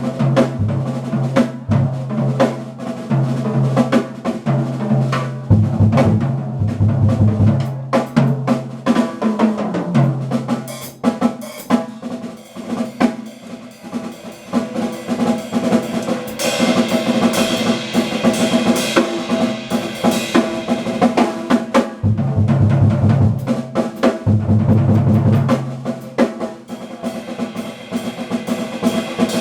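Jazz band sound-checking: a drum kit plays busily over held, changing double bass notes, with brighter sustained instrument tones coming in about halfway through and again near the end.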